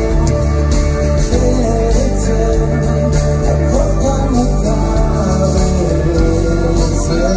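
Live amplified rock band playing: acoustic guitar, keyboards, bass and drums, with a voice singing over them.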